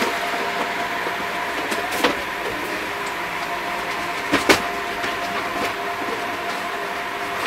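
Steady mechanical hum with a faint steady tone in it, broken by a few sharp knocks, the loudest a quick double knock about four and a half seconds in.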